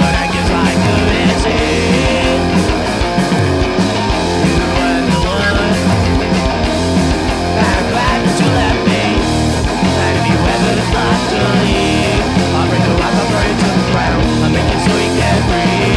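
A punk/grunge rock band playing live: distorted electric guitar, bass and drums at a steady driving beat.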